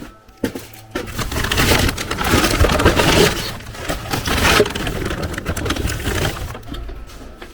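A horse crunching a hard treat. The loud, crackly chewing starts about a second in and fades near the end.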